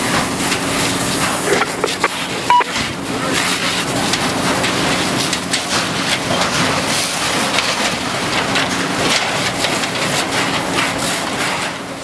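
Steady rushing hiss and fine crackle of a fire hose stream playing onto burning sawmill timber, over the steady hum of a running fire engine. A short high beep sounds about two and a half seconds in.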